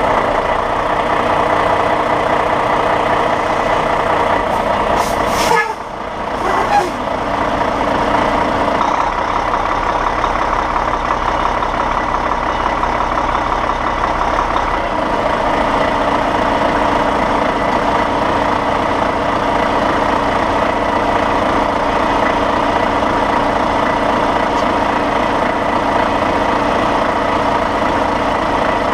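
Big-rig truck's diesel engine running, heard close up from the front bumper, with brief hisses of air from the air brakes about five to seven seconds in. The engine note shifts about nine and again about fifteen seconds in as the truck moves through the course.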